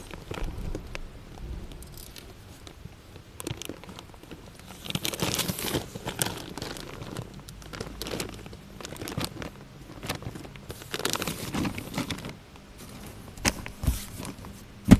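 Reusable and plastic shopping bags being handled and shifted about: irregular rustling and crinkling, with a couple of sharp knocks near the end.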